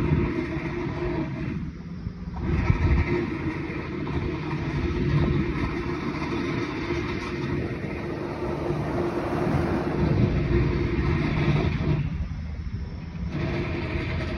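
A car driving past on the road, its tyre and engine noise swelling as it comes close, over a continuous low rumble with a steady hum.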